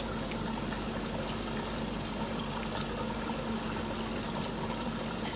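Steady rush of running water, with a low steady hum under it.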